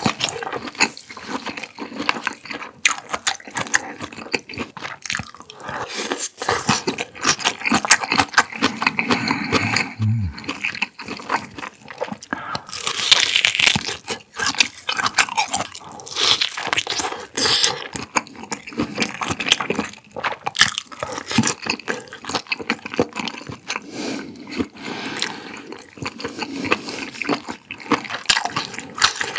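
Close-miked biting and chewing of whole smoked pork belly: crunchy, wet mouth sounds made of many small sharp clicks and crackles.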